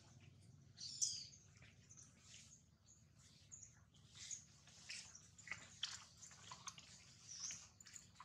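Near silence, broken by faint, scattered short clicks and ticks. The sharpest comes about a second in.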